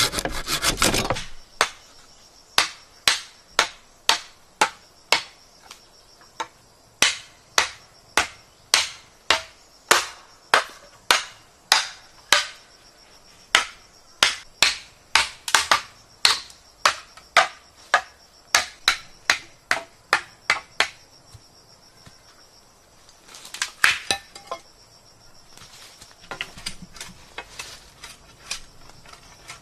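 A hand saw rasping through green bamboo, stopping about a second in, then a steady run of sharp, ringing blows on the top of an upright bamboo post being driven into the ground, somewhat under two a second, ending about two-thirds of the way through. A short clatter follows, then lighter knocks and rustling as long bamboo poles are handled.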